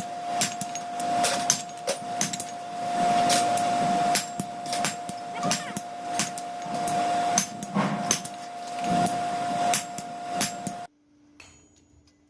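Steel hammer blows ringing on hot metal during forging, fast and irregular, over a steady machine hum. Both stop abruptly near the end, leaving near silence.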